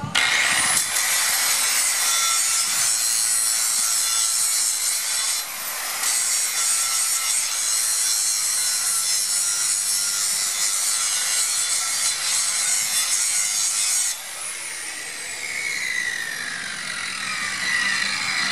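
Hand-held grinder grinding the rust off a metal frame down to bare metal, making a ground spot for a plasma cutter's clamp. It spins up quickly to a high steady whine with a grinding hiss that lets up briefly about five seconds in. About fourteen seconds in it is switched off and its whine falls slowly as it winds down.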